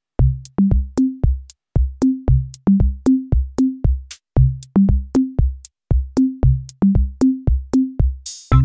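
Electronic background music: a drum-machine beat of low pitched bass-drum notes stepping upward in short repeating groups, with crisp ticks on top. Near the end a cymbal swell leads into a fuller section with held synth tones.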